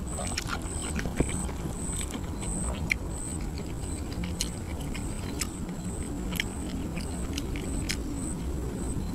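Close-up eating sounds of grilled catfish being chewed, with many short wet clicks and smacks from the mouth. A high, even chirp repeats about twice a second over a steady low rumble.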